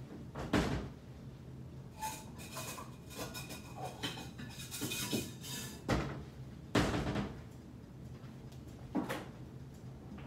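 Kitchen cupboard doors opening and shutting with about four knocks, and dishes clinking in between, as a small bowl is taken out.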